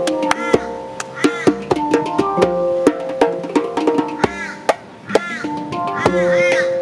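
Handpan (hang drum) ringing out sustained melodic notes over djembe hand drumming with sharp slaps, an improvised percussion jam.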